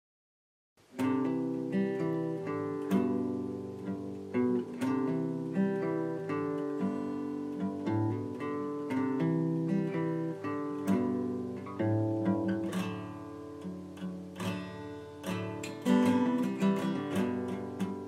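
Acoustic guitar intro music, plucked and strummed, starting just under a second in; the strumming gets busier near the end.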